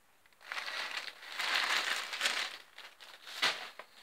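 Dry craft materials rustling and crinkling as they are handled and moved about on the table, in uneven clusters, with a sharp crackle near the end.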